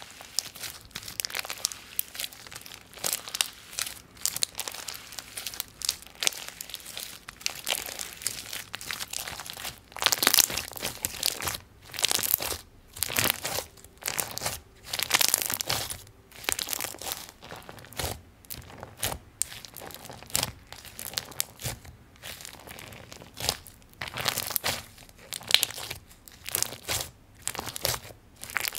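Clear slime with blue and white bits mixed in, being stretched, folded and pressed by hand, crackling and squishing in uneven bursts of sharp little crackles.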